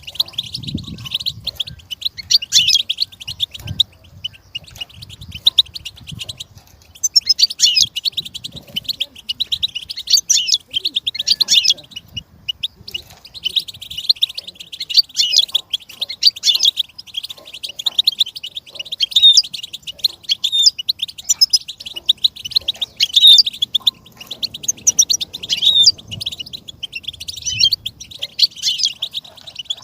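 Goldfinch singing: a continuous, rapid, high-pitched twittering song of quick chirps and trills, running on with only brief pauses.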